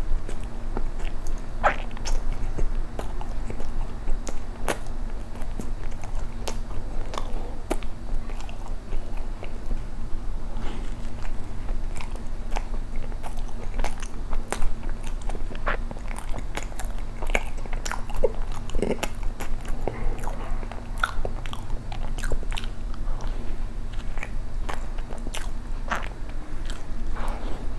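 Close-miked chewing and biting of soft injeolmi cream bread filled with soybean-powder cream and red bean paste, with many short wet mouth clicks scattered throughout. A low steady hum runs underneath.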